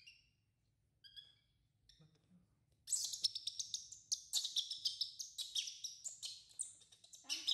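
Baby monkey crying with high-pitched squeals: a few short calls in the first two seconds, then a rapid, shrill string of squeaks from about three seconds in.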